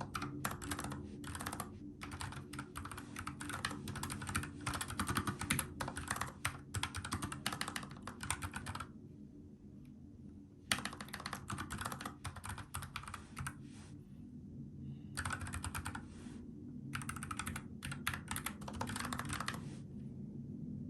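Typing on a NuPhy Air75 low-profile mechanical keyboard with brown tactile switches: fast runs of keystrokes broken by short pauses. A steady low hum runs underneath.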